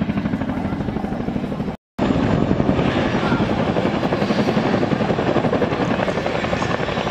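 Boeing CH-47 Chinook tandem-rotor helicopter flying past, its twin rotors beating in a rapid, steady thudding pulse. The sound cuts out completely for a moment just under two seconds in.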